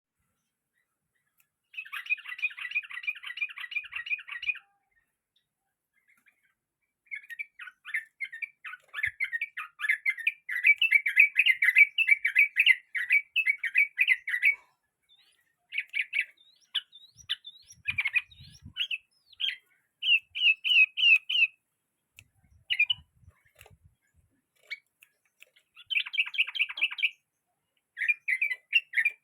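Yellow-vented bulbul (trucukan) singing: bouts of rapid chattering notes, each lasting from one to several seconds, separated by pauses of one to two seconds.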